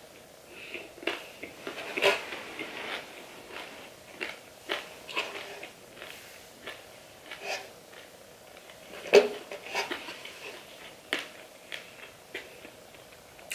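Close-up chewing of crispy fried chicken drumstick, with irregular crunches of the fried coating. The loudest crunch comes about nine seconds in.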